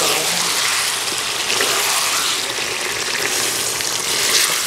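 Water poured in a steady stream into a hot karahi of frying beef curry, splashing into the oil and masala.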